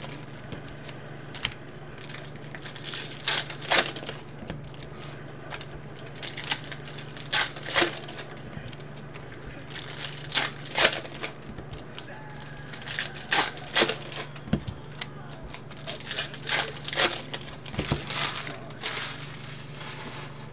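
Foil trading-card pack wrappers being torn open and crinkled by hand, in repeated bursts every few seconds. A steady low hum runs underneath.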